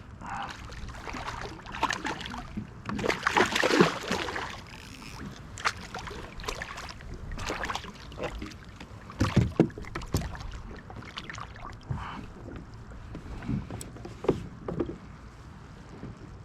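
Fishing kayak being paddled: irregular paddle splashes and water noise, the loudest about three to four seconds in, with a few sharp knocks against the hull about nine to ten seconds in.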